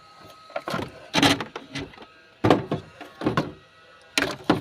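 About five short bursts of metal knocking and scraping as engine parts are pushed and shifted by hand while the cylinder head is being worked loose.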